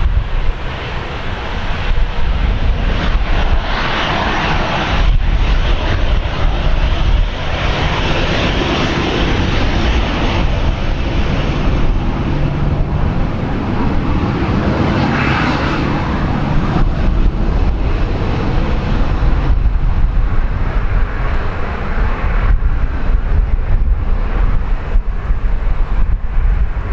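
Boeing 737-800 jet airliner's CFM56 engines running as it lands: a continuous loud jet rumble that swells and eases, with a brief higher whine about fifteen seconds in.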